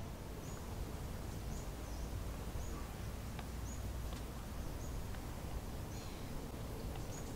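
Outdoor ambience on an open golf course: a steady low rumble of wind and distance, with a short high chirp repeating about once a second and a few faint clicks.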